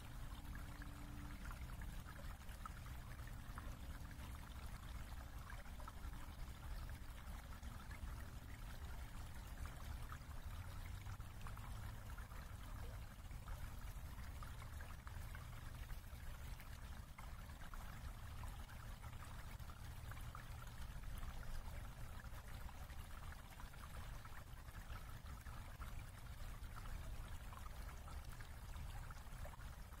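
A small, partly iced-over river flowing steadily: a continuous rush of running water with trickling, with no change or break.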